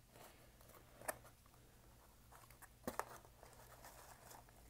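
Faint handling of a cardboard box holding foam packing peanuts and a knife in a plastic bag: light rustling with a few sharp taps, one about a second in and two close together near three seconds.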